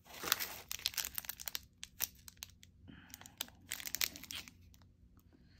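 Tissue paper and plastic packaging crinkling and rustling as a hand rummages through a box of small craft supplies. The crinkling comes in two spells, the first at the start and the second around four seconds in, with a few light clicks between.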